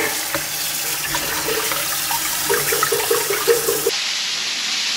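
Water running steadily from a tap into a sink, then about four seconds in an abrupt change to food sizzling in a frying pan.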